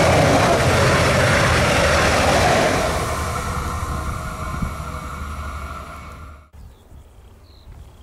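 Train passing on the line: loud rumble and wheel noise at first, fading steadily from about three seconds in as it moves away. The sound drops off abruptly near the end, leaving quiet outdoor ambience with faint chirps.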